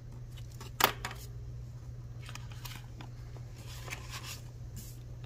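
Desk handling sounds: one sharp click of a pen about a second in, then soft rustling as the clear plastic sleeves of a binder are turned. A low steady hum runs underneath.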